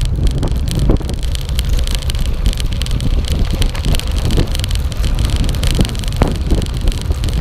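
Wind buffeting the microphone of a camera on a moving gravel bike, a steady low rumble, with the crunch and rattle of tyres rolling over a gravel track.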